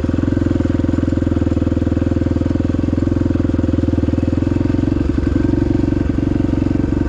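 Honda XR250 dirt bike's single-cylinder four-stroke engine running steadily, with a slight change in pitch about five seconds in.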